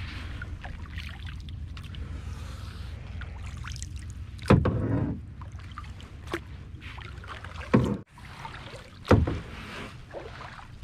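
Kayak paddle strokes in the water, three loud strokes in the second half, over a steady low rumble.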